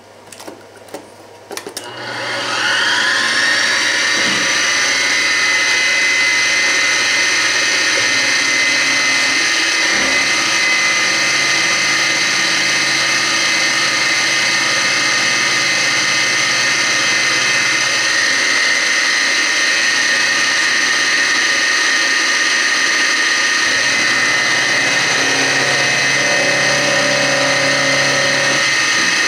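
Spindle of a CNC-converted Grizzly G0704 mill spinning up with a rising whine about two seconds in, after a few light brushing scrapes. It then runs at about 2,000 rpm with a quarter-inch four-flute carbide end mill cutting a sprocket profile in metal plate, a loud, steady whine.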